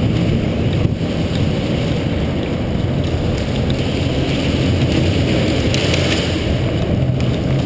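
Steady low rumbling noise from a body-worn GoPro as the player runs: air and movement rubbing over the camera's microphone, with a few faint ticks.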